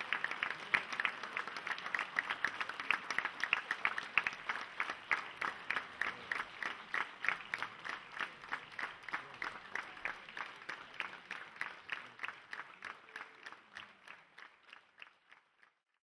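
Theatre audience applauding a curtain call, the clapping settling into a rhythmic unison beat of about three claps a second, then fading out near the end.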